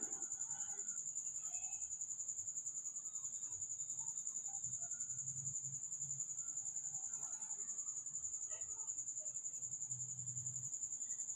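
A cricket chirping in a steady, high-pitched pulsing trill, with faint scraping of a spatula stirring thickening milk and chhena in a pan beneath it.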